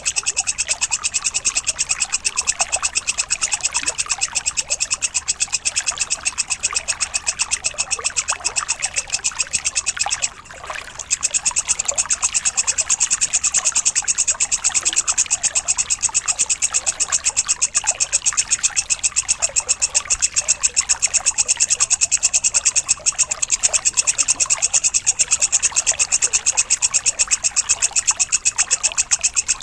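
Insect chirping: a fast, even, unbroken stream of rasping pulses that drops out for a moment about ten seconds in, then carries on.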